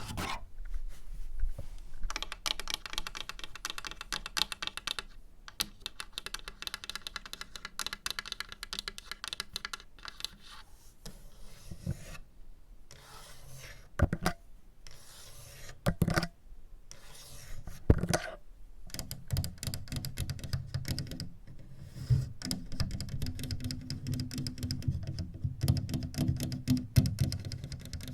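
Fast tapping and scratching for ASMR: a dense patter of small clicks mixed with rasping scratches, with a few short pauses.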